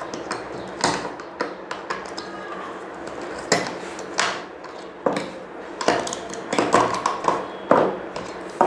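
Irregular plastic clicks and knocks of an air-conditioner remote control being handled as its batteries are taken out.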